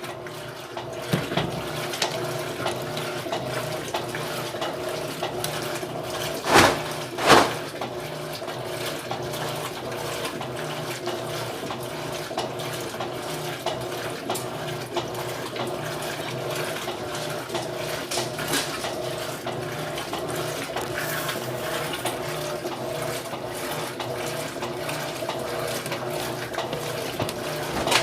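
Electrolux LT13B top-loading washing machine filling with water: a steady rush of water pouring into the drum with a faint steady hum. About a quarter of the way in come two short loud knocks, under a second apart.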